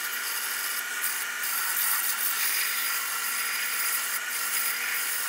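Wood lathe running at about 730 RPM while sandpaper is held against the spinning wooden handle blank, a steady hissing rub over the motor's hum.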